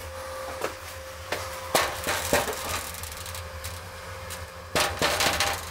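Sharp knocks and rattles on a patterned-glass door, a few single knocks early on, the loudest near two seconds in and a quick cluster near the end, over a steady electrical hum.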